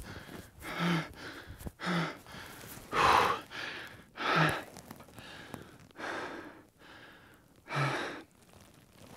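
A man breathing heavily in sharp, gasping breaths, six in a row, the pauses between them growing longer.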